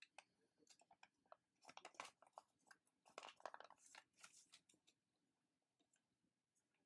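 Sheet of origami paper crinkling and crackling as hands fold and crease it, in faint scattered crackles that thin out about five seconds in.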